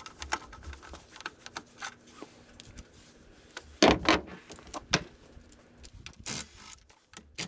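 Hand tools working screws and bolts out of a Honda Buddy 50 scooter's plastic body panels: irregular light clicks and taps, with a few louder knocks about four and five seconds in and a short scrape a little after six seconds.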